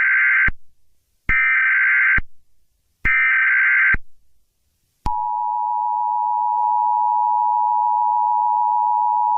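Emergency Alert System tones: three bursts of warbling data tones of the SAME header, each about a second long, then about five seconds in the steady two-tone EAS attention signal starts and holds.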